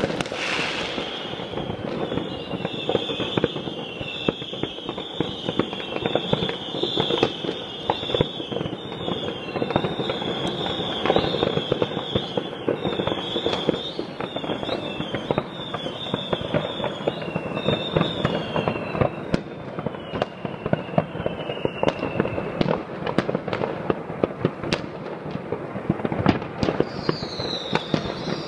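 Consumer New Year's Eve fireworks going off all across a city: dense, constant crackling and banging from many firecrackers and shells at once. Through the first two-thirds there is also a row of short high whistles, each falling in pitch, about one a second.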